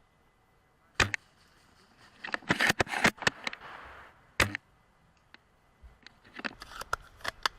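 Scattered sharp clicks and snaps: a single one about a second in, a quick cluster around the middle, another a second later, and a few more near the end.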